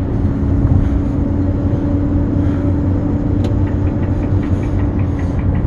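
Cab interior of a 25.5-ton Hyundai Xcient dump truck: the diesel engine runs with a steady low rumble and a held drone. A fast, light ticking, about four a second, comes in past the middle.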